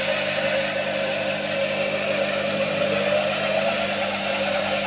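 Record Power DML250 wood lathe running under power from a washing-machine motor on an electronic speed controller: a steady motor hum and whine with a constant hiss.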